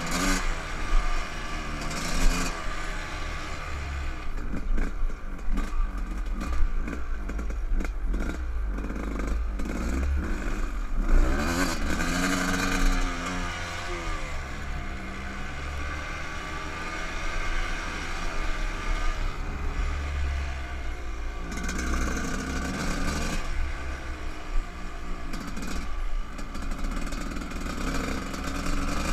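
Dirt bike engine running under way, its revs rising and falling several times, heard from a helmet-mounted camera. A run of clattering knocks from the bike jolting over the trail comes between about four and ten seconds in.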